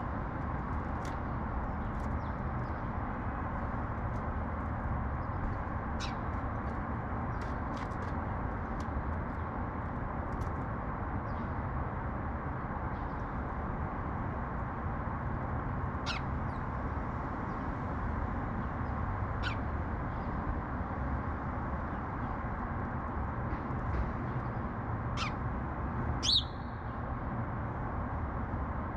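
Sparrows giving scattered short, high chirps, with one louder downward-sliding chirp near the end, over a steady hum of city traffic.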